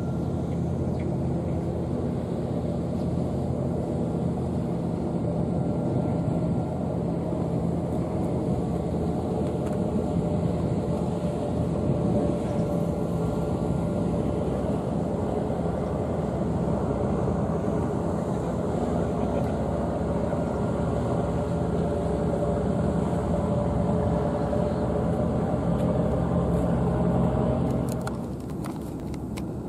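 Steady low engine drone, even and unbroken, dropping off somewhat near the end.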